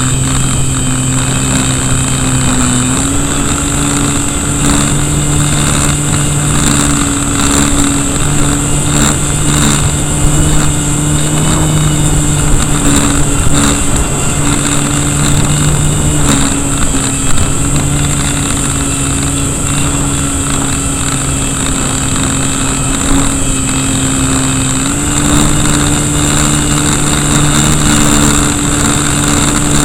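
Brushless electric motor (KV1100, on 3S 11.1 V) and propeller of an RC Cessna running in flight, heard from a camera mounted beside the motor, its steady drone stepping up in pitch about three seconds in, down a little past halfway, and up again near the end as the throttle changes. Strong wind buffets the microphone throughout.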